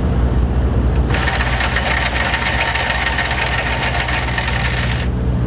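Impact wrench hammering for about four seconds, running a rusted nut off a forklift lift-chain anchor. It starts about a second in and stops abruptly, over a steady low hum.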